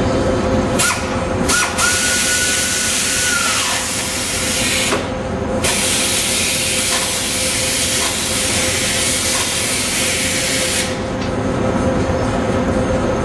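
Two long hissing sprays under the car: the first lasts about three seconds and the second about five. A steady workshop hum runs underneath.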